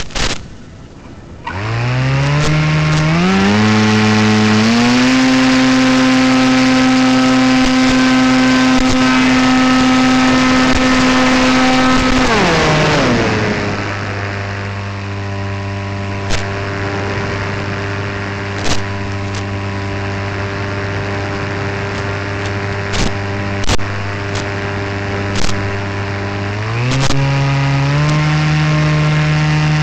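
RC paramotor's propeller motor running in flight. Its pitch climbs in steps a couple of seconds in, holds high, drops to a lower steady pitch around the middle, and steps up again near the end. A few sharp clicks come in the second half.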